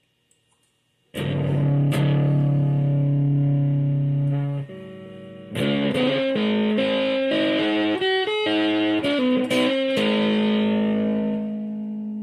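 Electric guitar played through a handmade booster + fuzz pedal. After about a second of near silence a chord rings for a few seconds, then a quick run of single notes, ending on a long held note.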